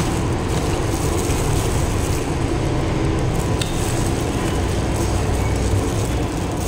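Steady background rumble and hiss of machinery, the noise she puts down to building work nearby, with a single sharp click about three and a half seconds in.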